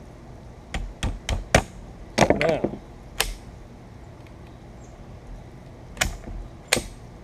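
Sharp metallic clicks and clacks from the action of a Greener EG shotgun being handled as it is put back together. Four come in quick succession, then a short clattering cluster, a single click, and two more spaced clicks near the end.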